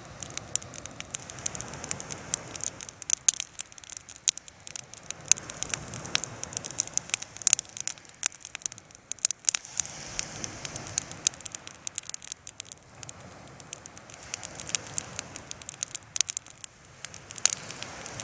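Campfire crackling, with many sharp irregular pops over a softer rushing noise that swells and fades every few seconds.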